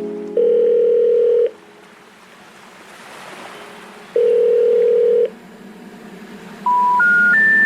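Telephone call tones: two long single-pitch beeps a few seconds apart, then three short tones stepping upward in pitch near the end, the rising triad of a special information tone that announces an unreachable or out-of-service number.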